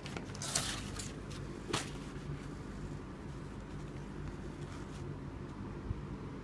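Rustling and handling of a nylon drawstring boot bag as it is picked up and laid down: a few short scrapes, mostly in the first two seconds, over a steady low hum.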